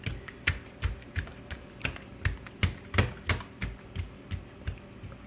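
Hands working a thin sheet of oiled feteer dough on a work surface, giving a soft tap or slap about three times a second that fades out near the end.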